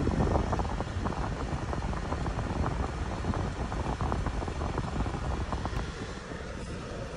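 Road and wind noise inside a moving Cadillac's cabin, a steady rumble with the engine running underneath, easing slightly near the end.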